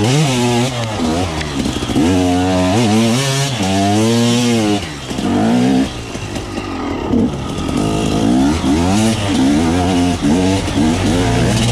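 KTM enduro motorcycle engine, heard close up from the bike, revving up and down again and again as the throttle is worked on and off, easing briefly about five seconds in before picking up in choppier bursts.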